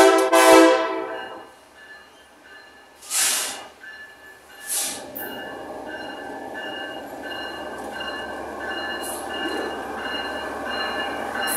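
A short horn blast from a Kansas City Southern ES44AC diesel locomotive, followed by two brief hisses. Then the steady rumble of the two locomotives as they roll past, growing slowly louder.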